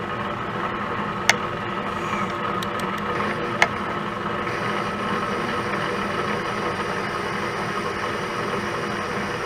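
Milling machine running steadily, its long end mill turning in the bore of a steel workpiece, with a couple of sharp metallic ticks in the first four seconds.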